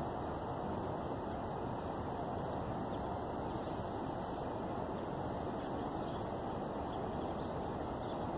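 Steady outdoor background noise, an even hiss with no speech, with a few faint short high chirps about halfway through.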